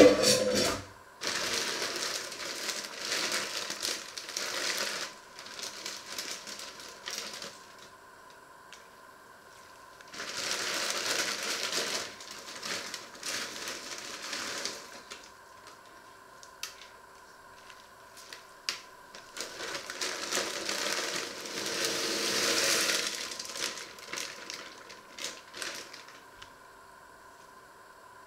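Plastic bag of mixed vegetables crinkling and rustling as it is handled and shaken out over the pot, in several bursts a few seconds long with quieter gaps between.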